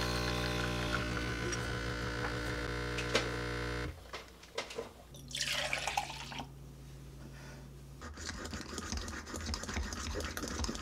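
An illy capsule espresso machine's pump hums steadily while brewing a shot and cuts off suddenly about four seconds in. Warmed milk is then poured into a glass plunger milk frother, and from about eight seconds in the plunger is pumped up and down in quick strokes, churning the milk into foam.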